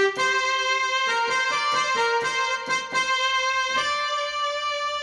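Electronic keyboard playing a wedding entrance (processional) arrangement: sustained chords over a steady rhythmic accompaniment, the introduction before the melody comes in.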